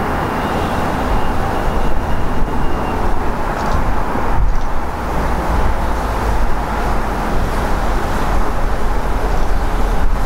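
Two diesel freight locomotives, an NJ Transit unit leading a Morristown & Erie unit, approaching with their engines rumbling steadily. Wind buffets the microphone throughout.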